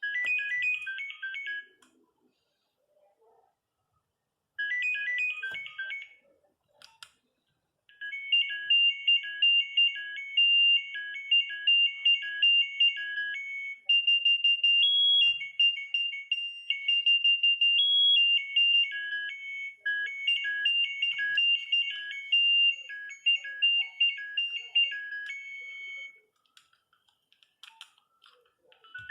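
Nokia 3510 mobile phone ringtones playing one after another as high electronic beeping melodies. Two short snatches sound in the first six seconds, then a click at about seven seconds. A longer tune follows from about eight seconds and stops about three seconds before the end.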